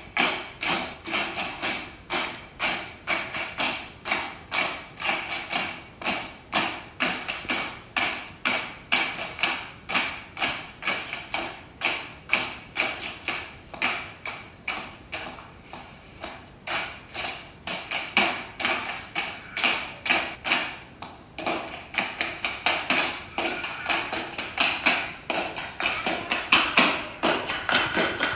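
A cappella tap dancing: several dancers' metal shoe taps striking the floor in quick rhythmic patterns, with no music, thinning briefly about halfway through.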